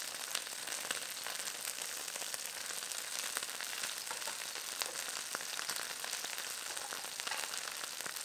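Boneless chicken thighs frying in hot oil in a wok, a steady sizzle with many fine crackling pops.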